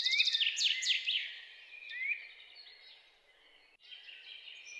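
Small birds chirping: a run of quick, high, falling chirps that fades away after about two seconds, with a few faint chirps returning near the end.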